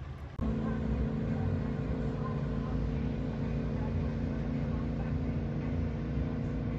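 An engine running steadily at one constant pitch, a low hum with a rumble beneath it, cutting in abruptly just under half a second in.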